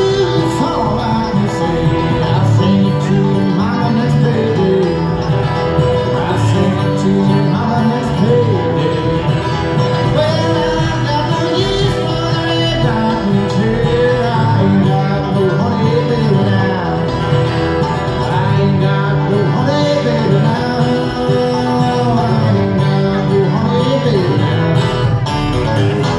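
Live bluegrass played on acoustic guitar, banjo and upright bass, the banjo picking quick rolls over steady guitar strumming and a walking bass line.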